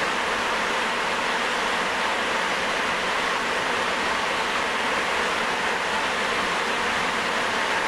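Sapporo Municipal Subway Type 9000 rubber-tyred train running at steady speed between stations: an even rushing running noise with a faint steady tone above it.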